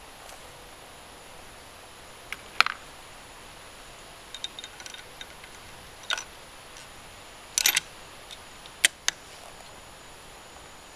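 Bolt of a Savage Model 10 .308 rifle being worked between shots: a scattered string of separate sharp metallic clicks and clacks, with a few small ticks about four to five seconds in.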